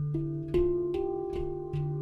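Background music: plucked notes struck every half second or so, ringing over a steady low tone.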